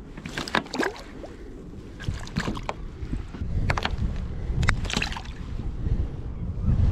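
Sea water splashing and slapping around a kayak in short irregular bursts, about nine in all, over a steady low wind rumble on the microphone.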